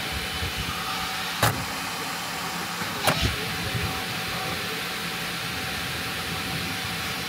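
Bambu Lab H2D 3D printer running mid-print: a steady whir of its fans with a faint steady tone, and two sharp clicks about a second and a half apart.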